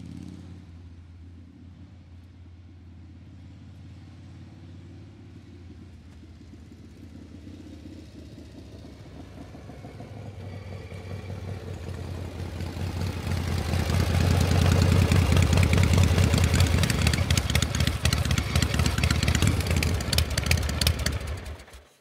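Metal gears shifting and turning with a steady low machine hum and a fast metallic clatter. It swells gradually to a loud, dense rattle and then dies away quickly near the end.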